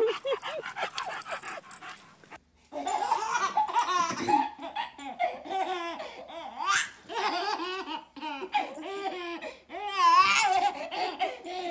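A bulldog yipping in quick short cries for about the first two seconds. After a brief gap a baby laughs in repeated bursts for the rest of the time.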